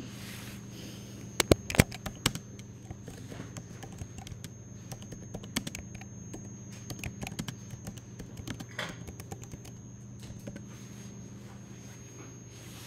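Typing on a computer keyboard: a run of quick, irregular key clicks, with a few sharper, louder clicks about a second and a half in. A steady low hum runs underneath.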